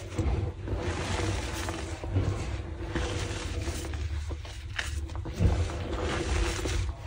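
Slices of gym chalk dusted with Holi powder being crushed, crunching and crumbling with continuous dense crackling.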